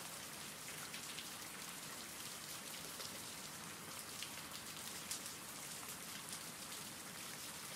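Steady rain, quiet: an even hiss with faint scattered drop ticks, the rain-sounds bed of a sleep-story recording.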